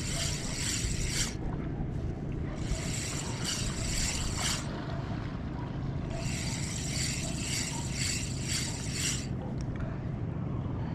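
Ryobi Ultrapower 1000s spinning reel whirring as its handle is cranked in three spells of one to three seconds with short pauses between, a stop-and-go lure retrieve, over a steady low rumble.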